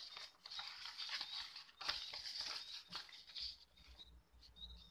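Sheets of a printed paper rustling as hands turn a page over and smooth it flat, in several brief rustles.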